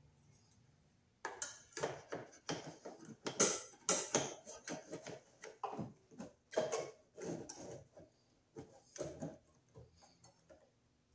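Pliers working the sheet-metal mounting tab of a metal electrical box: an irregular run of metallic clicks, scrapes and clanks. It starts about a second in, is loudest a few seconds later and dies away near the end.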